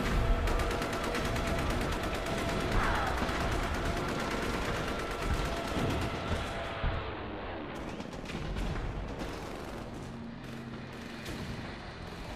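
Battlefield sound effects: rapid distant machine-gun and rifle fire over a low rumble, with a falling whistle about three seconds in, slowly fading out.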